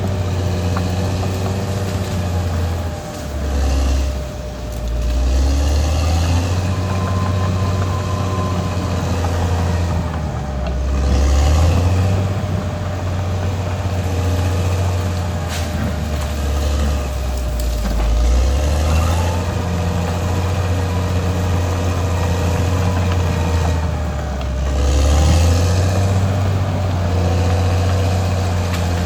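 Caterpillar D6R XL bulldozer's diesel engine working under load, its pitch dropping and rising again several times as the revs change.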